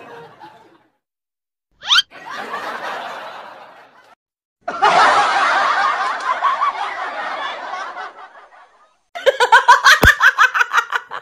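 Laughter sound effects: a quick rising sweep about two seconds in, then a burst of crowd laughter that starts abruptly and fades, then a fast run of loud, pulsing laughs near the end with one sharp thump among them.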